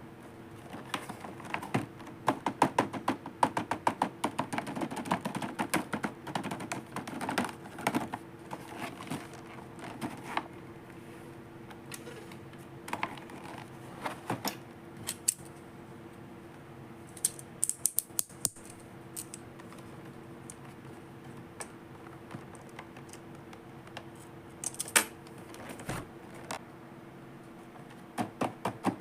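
Small plastic toy pieces clicking and tapping as they are handled, in quick clusters of clicks with pauses between.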